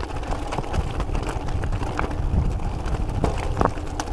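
Argon 18 Dark Matter gravel bike on 45C tyres bouncing down a rough road of loose rocks. Wind rumbles on the microphone under a run of irregular clattering knocks as the tyres and frame hit stones.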